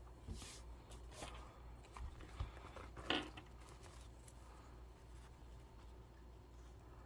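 Faint handling of paper and small wallet parts: light rustles and small clicks, with one louder, short crinkle about three seconds in.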